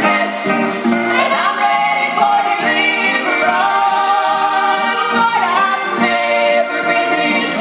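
Gospel music: voices singing together in harmony over instrumental backing.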